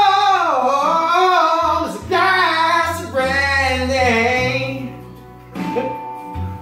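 A man singing loudly along to a recorded country song, in two long, wavering phrases with a short break about two seconds in, over the recording's steady bass.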